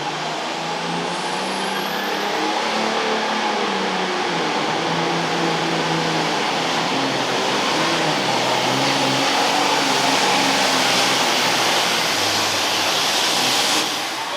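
Super Farm class pulling tractor's turbocharged diesel engine running hard at high revs through a pull, its pitch wavering as the load changes. The sound drops off sharply near the end.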